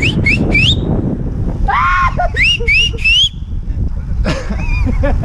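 Short, high, rising whistle-like calls in two groups of three, one at the start and one about two and a half seconds in. An arched, yelp-like call comes between them, all over a steady low rumble.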